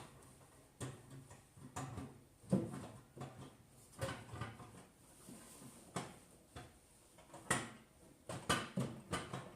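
Irregular knocks and clicks of a mixer motor being handled and fitted into a milk vending machine's tank, roughly one sharp knock every second or so.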